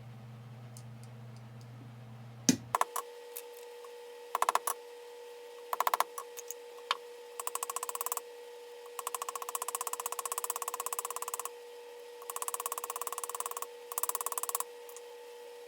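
Small hammer tapping a rivet to set it, cold-joining two metal clasp pieces: a few single strikes, then several quick runs of rapid light taps.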